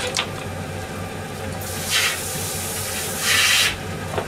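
Food hissing in a hot pan on a gas stove: a hiss of about two seconds that swells twice, then cuts off sharply, with light clicks of a utensil at the start and end.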